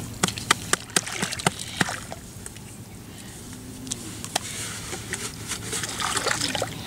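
Wet mud and water sloshing and splashing as a muddy hole is dug out by hand and with a wooden pole. A quick series of sharp wet slaps comes in the first two seconds, followed by quieter squelching with one more smack about halfway through.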